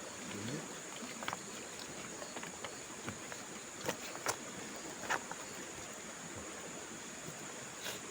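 Steady high-pitched insect drone, night crickets or similar, with a few light clicks and taps scattered through.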